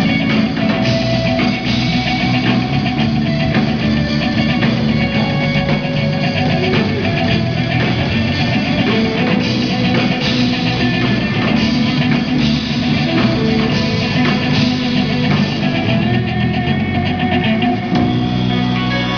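Live rock band playing an instrumental passage: distorted electric guitars and keyboard over a full drum kit.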